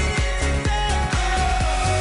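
Background pop dance music with a steady kick-drum beat, about two beats a second.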